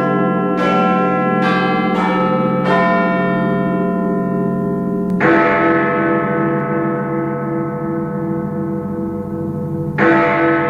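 Big Ben's clock bells: quarter bells ring the last few notes of a chime, then the great hour bell strikes twice, about five seconds apart. Each hour stroke rings on with a deep, slowly pulsing hum.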